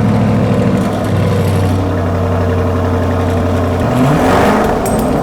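Lamborghini Urus twin-turbo V8 revved and held at raised revs with a cheap stainless exhaust whistle fitted to the tailpipe; the engine note changes about four seconds in. No whistle stands out above the exhaust: the add-on makes no difference that can be heard.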